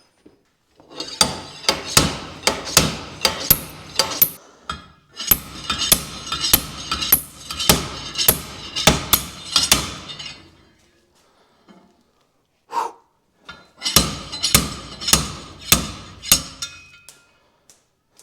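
Hammer blows on the metal of a BMW E46 trailing arm, struck rapidly about three times a second in three runs with short pauses between, each blow ringing.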